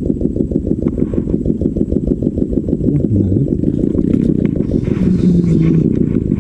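A small engine running steadily nearby: a low, rapid, even chugging.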